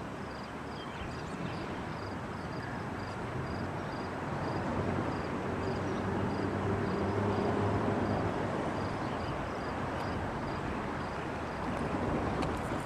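Diesel locomotive's engine running as the locomotive rolls slowly up, a steady low rumble that grows louder and is loudest about five to eight seconds in.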